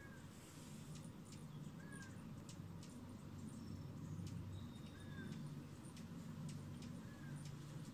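Faint low hum of hovering hummingbirds' wings, with a short soft squeak every two to three seconds and scattered faint ticks.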